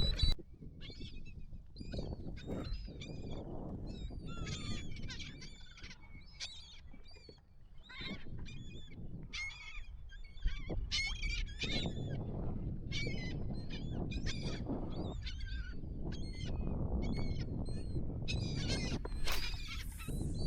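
A flock of seabirds calling over and over as they feed on bait fish pushed up by a school of fish: many short, overlapping calls, over a low rumble.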